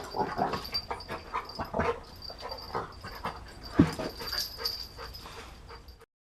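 Dog play-fighting, making a string of short, irregular grunting and growling noises, with one louder sound just before four seconds in. The sound cuts off abruptly near the end.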